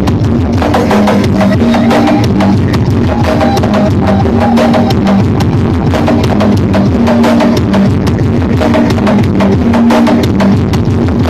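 Loud music with a fast, busy drum beat and a repeating melody, blasting from a Blizzard Audio horeg carnival sound system.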